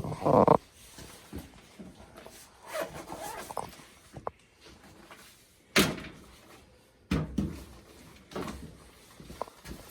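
Hand work on the boiler's controls: scrapes, rustles and handling noises, with a sharp knock about six seconds in and a few more knocks after it.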